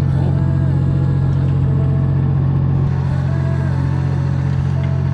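Fishing boat's machinery running with a steady low drone.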